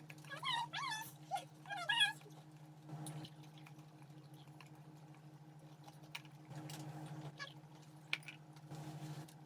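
An animal makes several short, high, wavering whines in the first two seconds, over a steady low hum.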